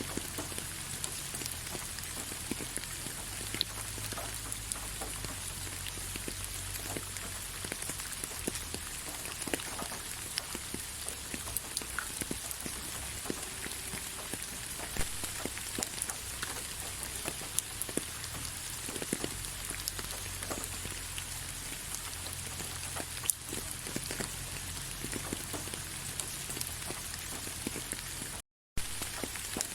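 Gentle, steady rain with many individual drops pattering. The sound cuts out for a split second near the end.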